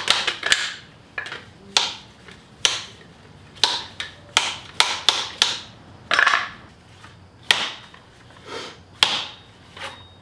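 A new oil seal being tapped down into a conventional motorcycle front fork (Suzuki V-Strom DL650) with a cut-in-half PVC pipe. The sharp knocks come at an uneven pace, about one or two a second.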